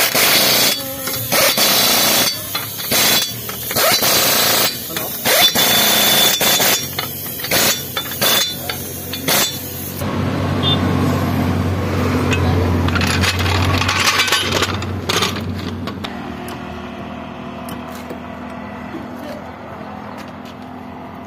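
Compressed-air tool working a car wheel in short, loud spurts about a second long, repeated for roughly the first ten seconds. A steadier, lower hum follows and slowly fades.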